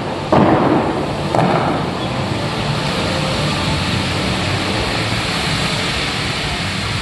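Water jets of the Dubai fountain show rushing, with two sudden surges about a third of a second and a second and a half in, then a steady rush of water and spray.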